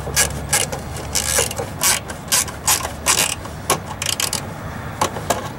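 Ratcheting screwdriver clicking in short, irregular runs as a taillight mounting screw is tightened.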